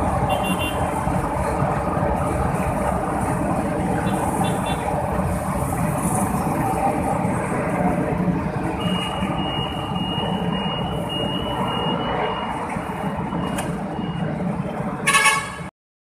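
An LRT-1 third-generation light rail train runs past on the elevated viaduct and pulls away, with a steady rumble of wheels on rail and street traffic below. A thin high whine holds for a few seconds in the middle, and a short loud blast comes near the end.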